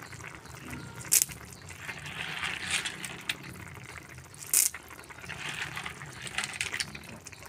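Handfuls of banag snails dropped into simmering bamboo shoots in a large metal wok: wet splashing and shells clattering, with two sharp clacks, one about a second in and one about four and a half seconds in.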